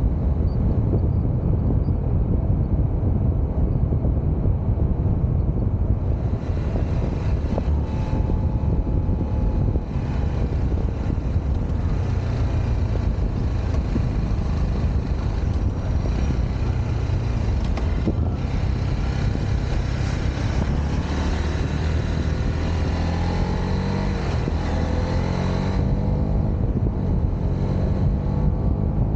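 Honda CBR motorcycle riding at speed, its engine running under a heavy rush of wind on the microphone. In the second half the engine note climbs in pitch several times as the bike accelerates.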